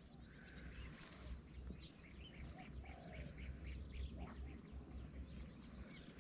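Faint outdoor ambience: a steady high insect whine with scattered soft chirps, over a low rumble.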